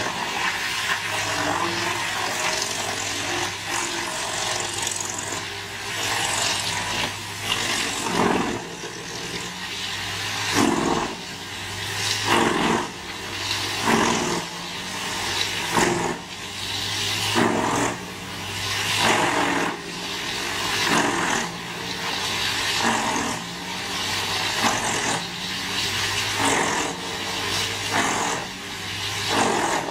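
Large wood chipper running: a steady engine drone with loud surges about every one and a half to two seconds from about eight seconds in.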